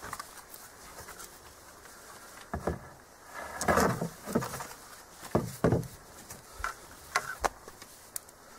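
A scatter of irregular knocks and rustles as a wooden bow stave and its cord are handled, with the loudest cluster a little under four seconds in.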